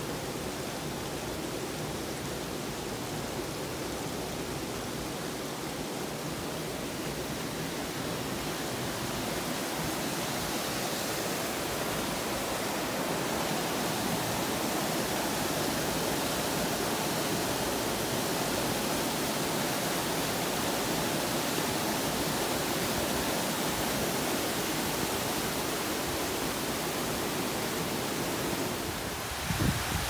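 Steady rush of water in a rocky mountain stream with waterfalls, swelling slightly about a third of the way in. A few low knocks at the very end.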